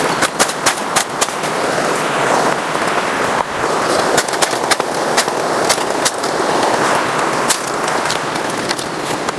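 Bamboo being cleared by hand: sharp, irregular cracks and snaps of stems and dry leaves, several a second, over a steady rush of water from the waterfall.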